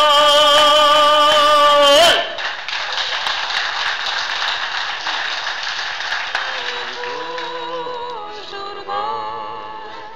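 An accordion holds a final chord that cuts off about two seconds in, and the audience applauds, the clapping slowly dying away near the end.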